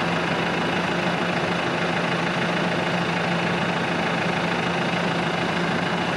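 New Holland Workmaster 105 tractor's diesel engine idling steadily.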